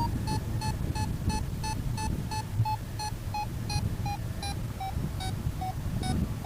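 Flight variometer beeping about three short beeps a second, the climb tone showing the glider going up. The pitch drops a little about four seconds in, over a low wind rumble.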